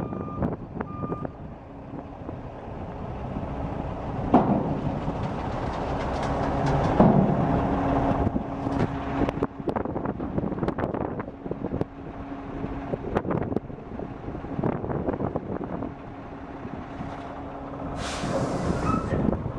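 A 2007 Mack Granite dump truck's 12-litre inline-six diesel running, with its reversing beeper sounding about once a second until it stops about a second in. Several knocks and clanks come through the engine noise, and a short burst of air hiss sounds near the end.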